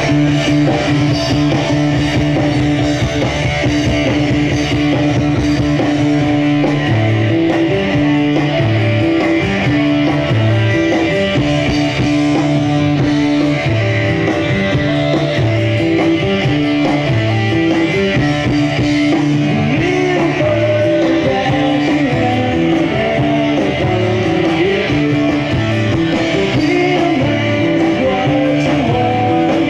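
A rock band playing live on an open-air stage, with electric guitars over a moving bass line, heard through a camcorder microphone in the crowd.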